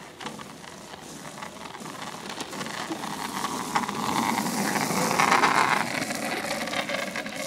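Four-wheel kick scooter's wheels rolling on wet asphalt, a hiss that grows louder as it comes closer and peaks as it passes about five seconds in.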